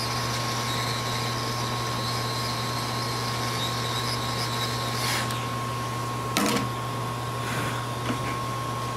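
Hot air rework station blowing a steady hiss onto a MacBook logic board to reflow small surface-mount resistors, over a steady low hum and a thin steady tone; the airflow falls away about five seconds in, and a single sharp click follows about a second and a half later.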